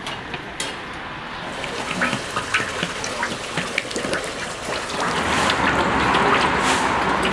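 Water running or being poured, with scattered small clicks and knocks; the rush grows suddenly louder and fuller about five seconds in and then stays steady.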